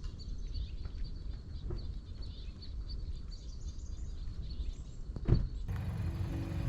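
Outdoor ambience: a low wind-like rumble with a small bird chirping over and over, and a single sharp knock about five seconds in. Music starts abruptly near the end.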